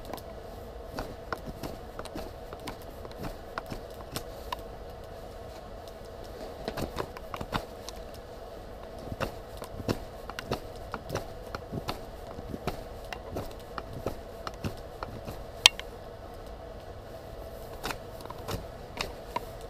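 Fixed-blade 80CrV2 bushcraft knife (Delta Whiskey Farnhawk) shaving a wooden stick: a string of irregular short crisp cuts as shavings come off, about one or two a second, with one sharper snap near the end. A steady hum runs underneath.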